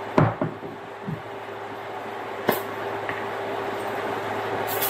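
A thump and a sharp click as a cooking spray can is handled, over a steady low hum. Near the end, avocado oil cooking spray starts hissing onto a tray of vegetables.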